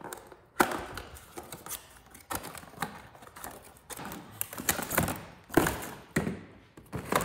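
Cardboard boxes and packaging being opened and handled: irregular taps and knocks with rustling of cardboard, and a sharper knock about half a second in and another near the five-second mark.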